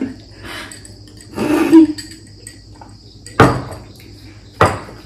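Two sharp knocks of drinking glasses being set down on a table, the first about three and a half seconds in and the second about a second later. Before them, about a second and a half in, there is a short noisy sound with a brief voice in it.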